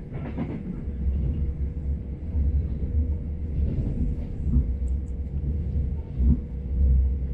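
Steady low rumble of a moving commuter train heard from inside the carriage: wheels running on the track, with a faint constant hum above it.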